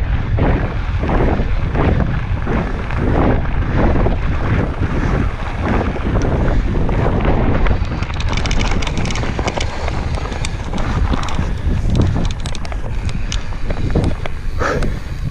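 Loud wind buffeting the microphone of a camera mounted on a mountain bike riding fast downhill. From about halfway on, tyres crunch and rattle over loose gravel.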